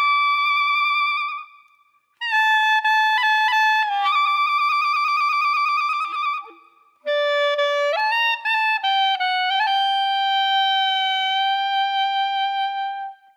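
Background music: a solo wind-instrument melody, one held note after another, in three phrases with two short breaks of silence between them.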